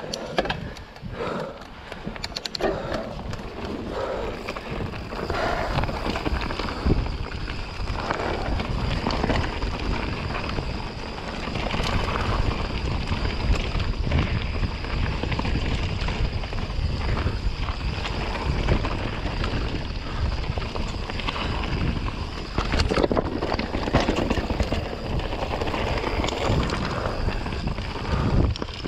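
2021 Polygon T8 full-suspension mountain bike descending a rough dirt trail at speed: its tyres rumble over the dirt, and the bike clatters and rattles over roots and bumps. Wind buffets the microphone.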